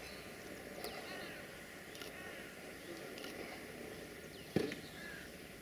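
Birds chirping over a low, steady background rush, with one sharp knock about four and a half seconds in.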